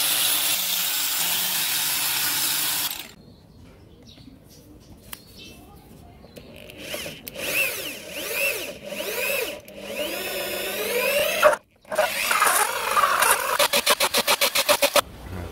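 An angle grinder with a sanding disc runs steadily against a wooden disc for about three seconds. After a quieter gap, an electric drill with a hole saw bores into thick wood, its whine rising and falling with speed. Near the end the cut turns loud with a fast stutter.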